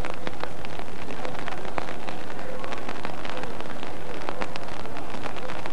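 Steady rain falling, a constant hiss dotted with many sharp little drop ticks.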